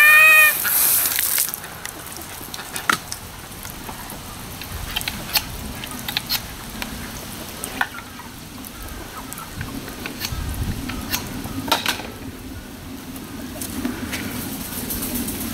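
Water spraying from a garden hose spray nozzle, a strong hiss that cuts off about a second and a half in. After it, a low background with scattered light clicks and knocks.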